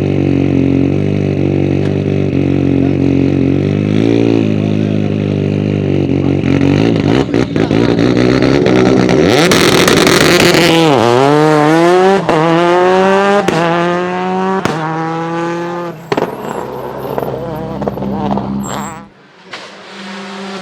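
Škoda Octavia WRC's turbocharged four-cylinder engine held at high revs on launch control, then launching with a burst of noise and accelerating away through four quick upshifts, the pitch rising and dropping at each shift before it fades.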